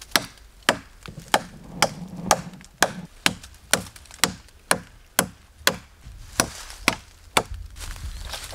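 A blade hacking into a krathin (white leadtree) trunk: sharp wooden chops at a steady two or so a second, stopping about a second before the end.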